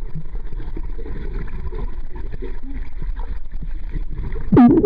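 Muffled underwater noise of a swimming pool heard through a submerged camera's microphone: a steady low rumble and bubbling of moving water. A brief louder sound with a bending pitch breaks in near the end.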